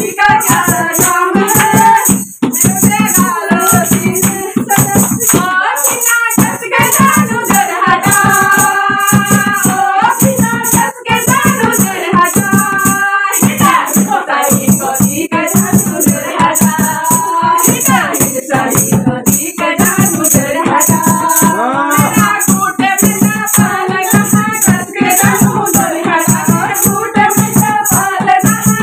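A group of women singing a Holi song together, over a fast, steady beat of rattling and hand claps.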